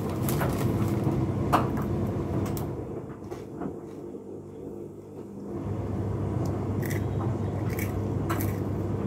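A steady low hum runs throughout, dipping for a couple of seconds in the middle. Over it come a few short crackles of a crisp packet being handled, and crunching as crisps are eaten.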